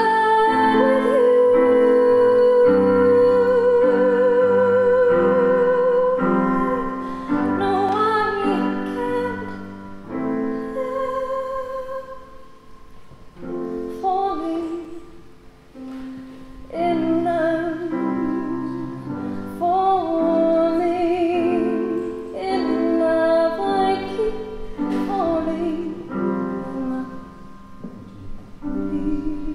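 Music: a woman singing slow, long held notes with vibrato over piano accompaniment, softer for a few seconds in the middle.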